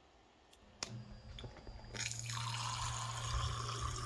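A push button clicks about a second in, and a small 12-volt water pump starts humming steadily. About two seconds in, water begins spraying from the homemade PVC faucet's drilled head into a glass.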